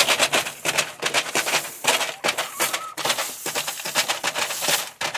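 Plastic feed bag crinkling and dry chicken-feed pellets rattling as a hand scoops feed out of the bag, a rapid irregular crackle.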